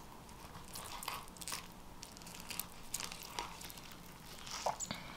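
Fillet knife cutting a crappie fillet away from its skin on a cutting board: faint, scattered small crunches and ticks as the blade works through the flesh and scaly skin.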